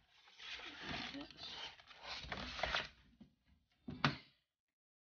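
Handling noise from unpacking lock parts: a few seconds of rustling packaging with small clicks, then one sharp click about four seconds in.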